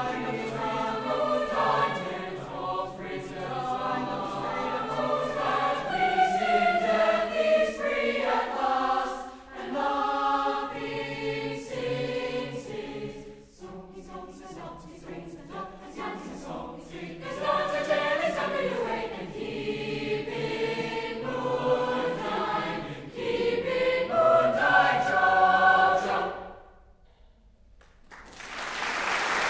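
Large mixed choir singing in several voice parts, ending its song about 26 seconds in. After a brief hush, applause starts near the end.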